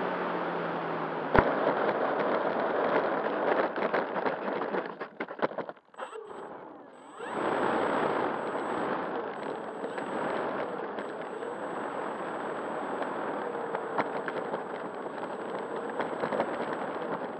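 Onboard-camera audio of a radio-controlled P-51D Mustang on the runway: a steady rushing of propeller wash and motor noise over the microphone, with a sharp knock about a second and a half in and a brief drop-out around six seconds. After the drop-out the rushing returns with a faint steady high whine.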